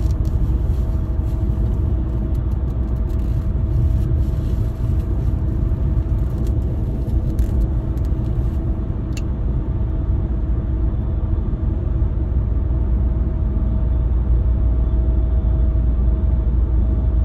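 Steady road and engine rumble heard inside the cabin of a moving car, with a faint steady whine running through it.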